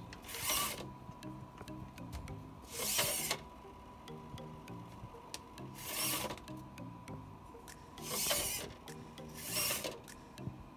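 Small hobby servos in a 3D-printed Iron Man helmet whirring in short bursts of about half a second as they swing the faceplate open and shut, five times, a couple of seconds apart.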